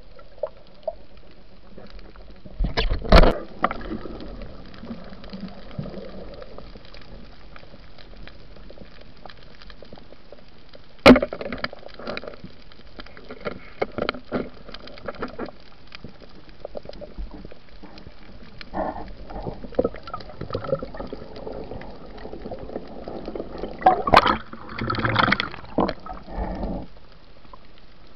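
Muffled underwater noise heard by a diver's camera: a steady watery hiss broken by bursts of bubbling and splashing, and a single sharp click about eleven seconds in.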